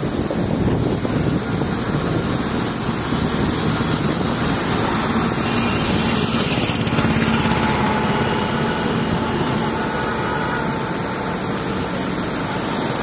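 A motor engine running steadily, with dense noise and no sharp events.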